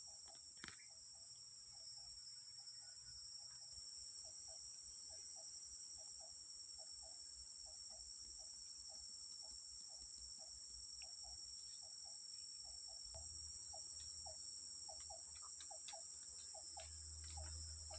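Steady, high-pitched chorus of rainforest insects, with a faint short double note repeating about twice a second underneath.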